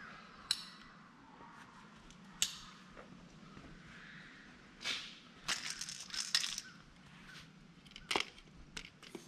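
Scattered clicks and light rattles of a plastic oil bottle and its hand pump being handled, with a quick cluster of clicks a little past halfway.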